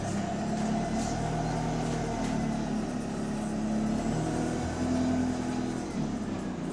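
Bus engine heard from inside the bus under way, its note rising and dropping in steps as it pulls and the gearbox shifts. The exhaust has a leak, which the uploader points to in the title.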